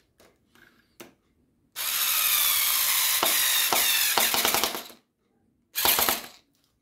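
Atlas cordless Phillips screwdriver driving a screw with a washer into a bamboo lamp leg. The motor runs steadily for about three seconds and ends in a rapid run of clicks, followed about a second later by a second short burst of clicks.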